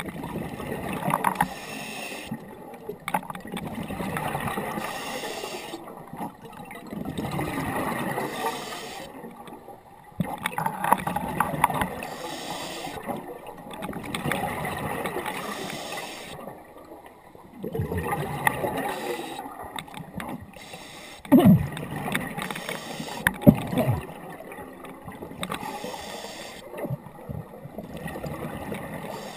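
Scuba diver's regulator breathing underwater: exhaled bubbles rush out in even swells about every three to four seconds. Two sharp knocks stand out about two-thirds of the way through.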